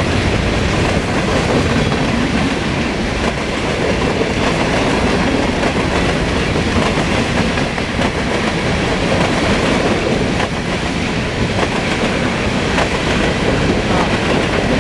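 Railcars rolling past close by: a steady loud rumble of steel wheels on rail, with now and then a faint click of wheels over rail joints.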